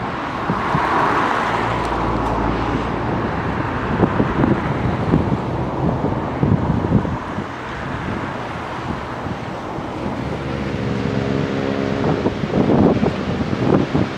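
Cars driving past on the road below, with engine and tyre noise, and wind gusting on the microphone. About ten seconds in, one engine's steady hum stands out for a couple of seconds.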